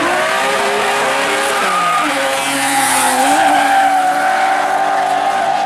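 Two drift cars sliding in tandem, their engines revving up and down at high rpm while the rear tyres squeal and scrub in a cloud of smoke.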